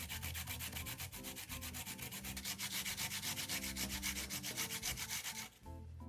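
Rhythmic scraping of food being grated on a hand grater, about five strokes a second, stopping abruptly about five and a half seconds in.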